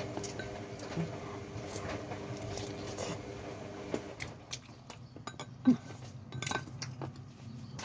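Chopsticks clicking against a ceramic bowl as noodles are eaten, with scattered small clinks and eating noises. A steady low hum sits underneath for about the first half.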